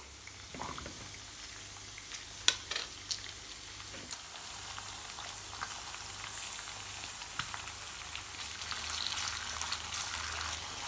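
Minced meat frying in a pot, a steady sizzle with fine crackle that grows denser near the end. A few sharp clicks come about two and a half to four seconds in.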